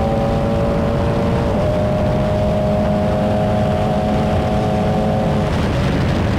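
Formula 4 race car's engine running at steady high revs under load, heard from the cockpit over wind and road noise. The engine note shifts slightly about a second and a half in and drops away near the end.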